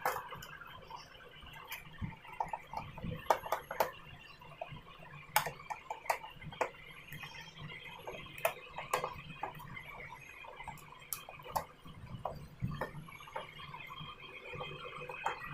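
Irregular small clicks and taps of a screwdriver turning out screws from a plastic LED TV back cover, with light knocks as hands handle the plastic casing.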